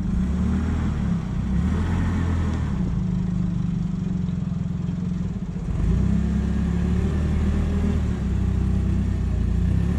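A large engine, likely on the heavy equipment moving the substation, running steadily with a deep hum. It dips briefly and then comes back louder about six seconds in, as if taking on load.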